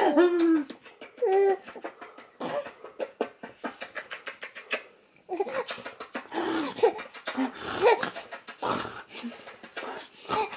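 Baby laughing: a high squeal right at the start and another about a second and a half in, then after a short lull a run of choppy, breathy laughs.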